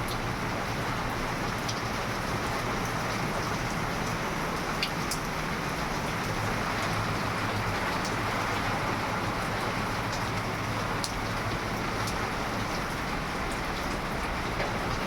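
Steady rain falling, an even hiss with now and then the sharp tick of a single drop striking close by.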